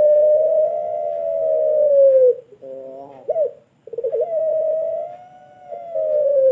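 A puter pelung (Barbary dove) cooing: a long, drawn-out coo that sinks in pitch at its end, a few short notes, then a second long coo that also slides down near the end.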